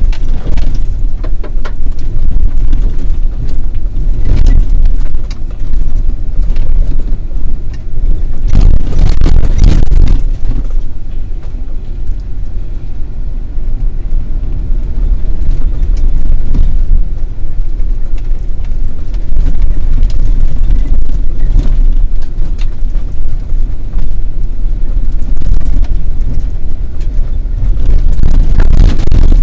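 Off-road vehicle driving over a rough dirt track: a steady low rumble of engine and tyres, with a few louder, rougher stretches, the longest about nine seconds in.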